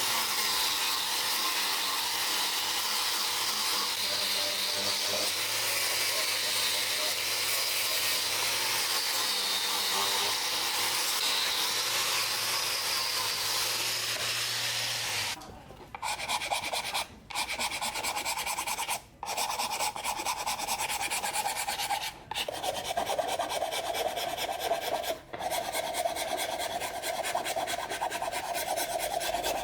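Abrasive work on a part: a power tool runs with a steady low hum for about the first half. Then comes rapid hand filing or sanding, broken by short pauses every few seconds.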